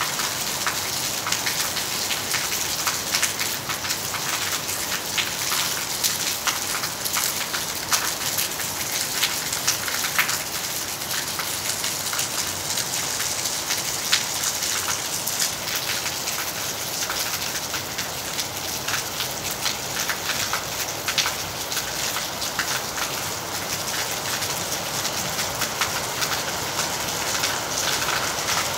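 Heavy rain falling on a corrugated metal roof: a steady, dense hiss made of countless fine drop ticks, unbroken throughout.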